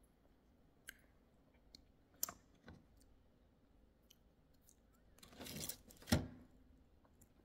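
Small sharp clicks and cracks of tamarind pods being handled. Near the end comes a rustle and the loudest click, as a hand reaches into a clear plastic container of pods.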